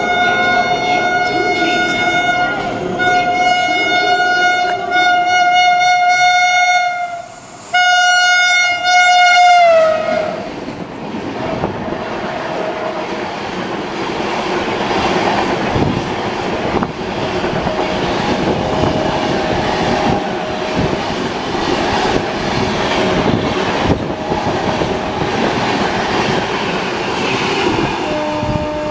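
WAP-7 electric locomotive blowing its horn in two long blasts as it runs through at high speed, the pitch dropping as it goes by. Then its passenger coaches rush past with the wheels clattering over the rail joints.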